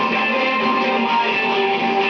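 Pop music with strummed guitar playing steadily.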